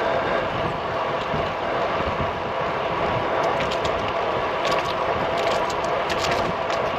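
Steady wind rush on the microphone and rolling road noise from a road bike riding at speed. In the second half there are scattered faint ticks.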